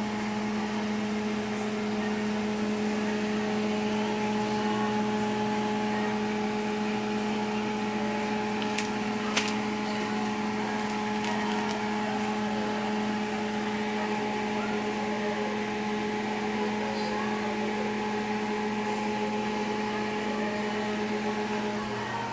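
Steady electric motor and fan hum of a running kitchen appliance, even and unchanging, with two sharp clicks about nine seconds in.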